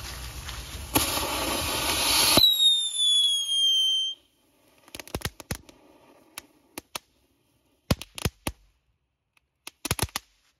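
Small ground firework fountains going off: a loud rushing hiss that cuts off abruptly, then a whistle sliding down in pitch, then scattered sharp crackling pops.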